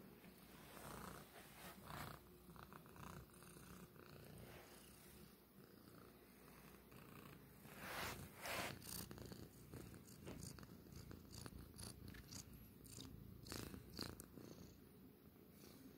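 A domestic cat purring softly and steadily close to the microphone, with short bursts of fur rustling as the phone brushes against the cats, loudest about eight seconds in.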